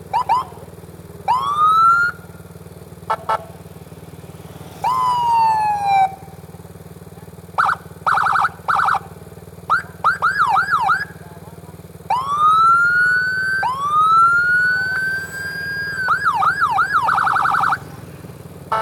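Local Whelen-type electronic siren played through a TOA 15 W speaker, stepping through its tones in short separate bursts. It gives quick chirps, rising wails (one held near the top), a falling sweep, runs of fast yelps and rapid pulsing stutters.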